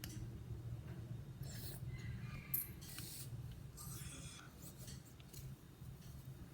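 Faint scraping and rustling in a few short bouts, over a steady low hum: hands handling containers and utensils while mixing slime.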